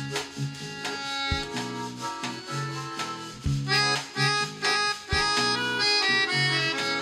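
Instrumental music: a melody over changing bass notes, with a regular beat of percussion hits.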